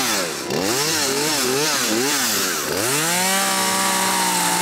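Husqvarna 236 two-stroke chainsaw revved in a series of quick blips, then about three seconds in rising to a steady high rev held at full throttle. The chain is being run against asphalt to dull it on purpose.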